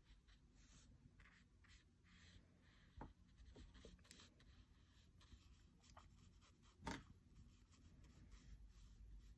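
Faint, soft strokes of a wet watercolor brush on paper as pencil pigment is dissolved into shading, with a light tap about three seconds in and a sharper one about seven seconds in.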